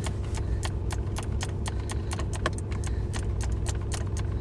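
Ratcheting wrench clicking steadily, about four or five clicks a second, as it turns the loose 10 mm bolt that holds the shifter, over the low hum of the idling truck engine.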